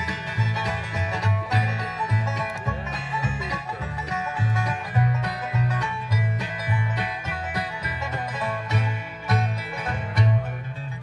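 Live instrumental bluegrass from an acoustic band heard through a PA: rapid banjo rolls and strummed guitar over upright bass notes about twice a second.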